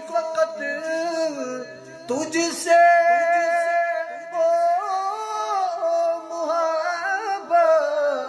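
A man's voice singing an Urdu devotional nazm (dua) in long, drawn-out notes that bend and waver, with a short break about two seconds in.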